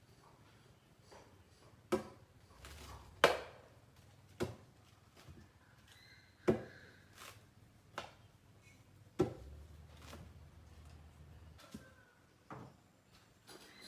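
A series of sharp knocks, about seven, irregularly spaced one to two seconds apart. The loudest comes a little over three seconds in.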